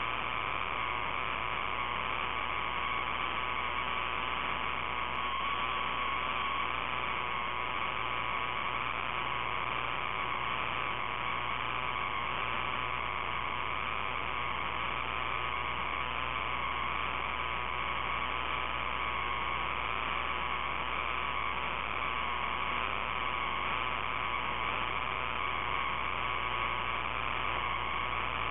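Steady electrical hum and hiss, like line noise on an audio feed, with a faint wavering whine over it. It holds unchanged throughout, with no engines passing.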